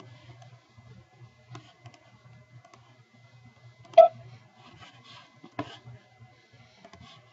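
Computer mouse clicking a few scattered times, with a sharp click about four seconds in and another about a second and a half later, over a faint steady low hum.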